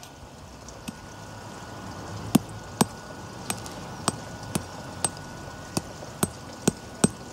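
A series of sharp knocks, one about a second in and then about two a second from about two seconds in, over a faint steady high tone.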